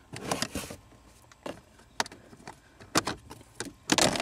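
Sharp plastic clicks and knocks as a 2017 Honda Civic's cabin air filter access door is unclipped and handled by hand, with a denser run of clicks near the end as the cover comes off.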